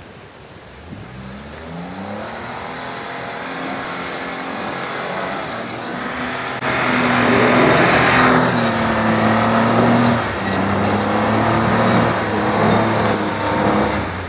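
Jeep Wrangler JK engine running under load off-road, revving up and down with its pitch rising and falling. About seven seconds in it gets louder, with a rush of rough noise over the engine note.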